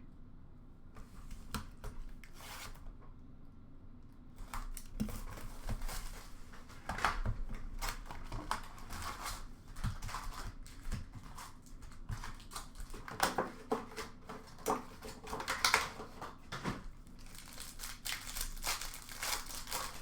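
Upper Deck hockey card packs being torn open by hand, the wrappers crinkling and tearing in irregular bursts, with cards being handled. It starts about a second in and grows busier after about four seconds.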